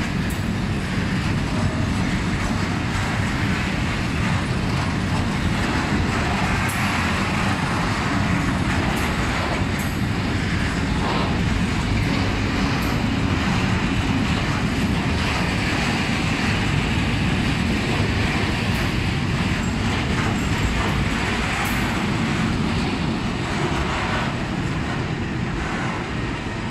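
Freight train of covered hopper wagons rolling past: a steady rumble of wheels on rails, with scattered sharp clicks from the wheels and couplings.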